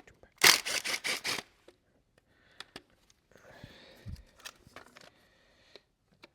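Ratchet wrench with an 8 mm socket ratcheting in a quick run of about six clicks, loosening the engine's coil pack harness fasteners, followed by fainter scattered clicks and rustling as the parts are handled.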